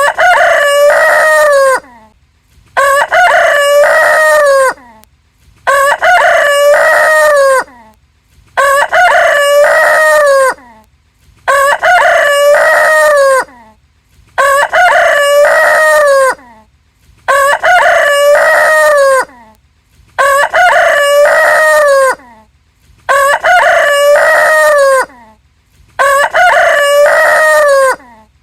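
Rooster crowing over and over, about ten crows roughly every three seconds, each a loud multi-note cock-a-doodle-doo of about two seconds with near silence between.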